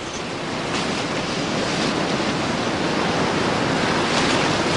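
Flood-swollen river rapids rushing and crashing: a steady, loud churning of turbulent water.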